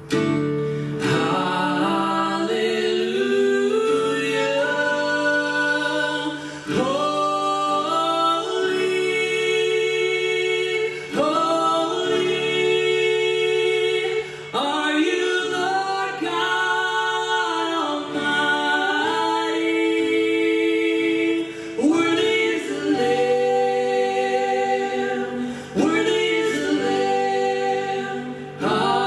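Choir singing a cappella: several voices holding long, sustained chords that shift every few seconds, with brief breaks between phrases.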